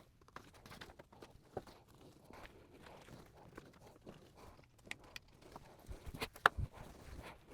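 Tack puller prying tacks out of a fabric layout skirt on a wooden platform: faint, scattered small clicks and knocks, with two sharper knocks about six seconds in.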